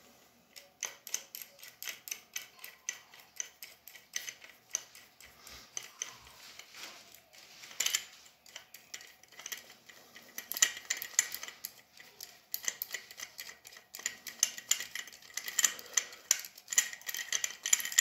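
Metal nut being spun by hand down a long threaded screw against a washer: quick runs of light metallic clicks and ticks, busier and louder in the second half.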